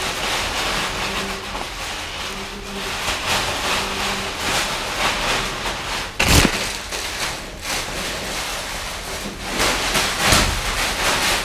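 Thin blue plastic shoe covers crinkling and rustling as they are pulled on over the feet, with two dull thumps, one midway and one near the end.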